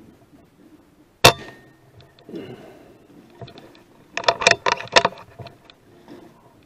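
A single sharp rifle shot about a second in, fired at a rat at 14 yards: the first shot, which misses. A few seconds later comes a quick cluster of about half a dozen sharp metallic clicks and knocks.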